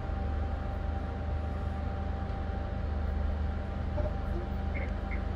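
Norwegian Dawn cruise ship's engines and machinery running: a steady low drone with a faint constant whine above it. A few faint short chirps come near the end.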